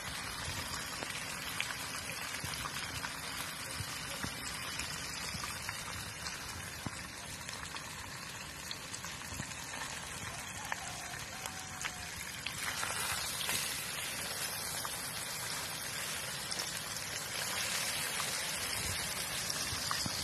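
Egg-battered kangkong (water spinach) sizzling in hot oil in a wok, a steady hiss with fine crackling pops. It gets louder and brighter a little past halfway.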